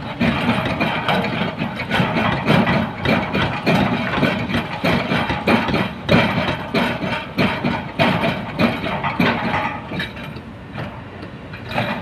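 Kobelco crawler excavator's diesel engine running under load as the machine digs, with dense, irregular clattering and scraping of river stones against the steel bucket.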